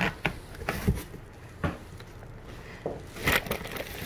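Packaging being handled in a cardboard box: the bubble-wrap insulation liner is pulled back and plastic-wrapped meat packages are shifted, giving scattered short rustles and scrapes. There is a quieter stretch in the middle and a louder rustle near the end.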